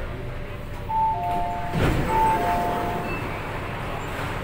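MTR K-train door chime, a falling two-note ding-dong sounded twice, with the rush of the sliding passenger doors opening just before the second pair of notes, over the steady hum of the stopped train.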